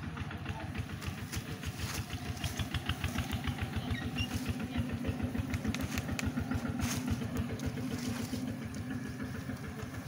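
A mass of honey bees buzzing on a comb: a steady drone that swells from about three seconds in, over a low fluttering rumble.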